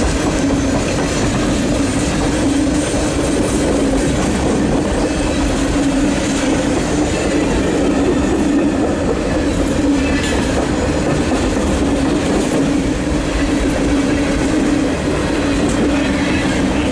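CSX freight train's cars rolling past at speed: a steady loud rumble with the clickety-clack of wheels over the rail joints.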